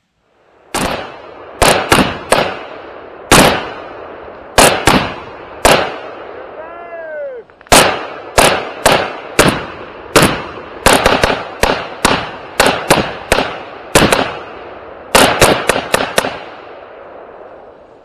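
Semi-automatic gunfire from PSA AK-pattern guns in 7.62x39: about two dozen loud shots in irregular strings, some in quick pairs and triples. A brief falling whine comes about seven seconds in.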